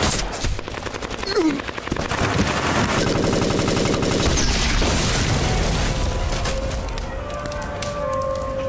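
Heavy gunfire, with a machine gun firing rapid bursts among other shots. The firing thins out near the end.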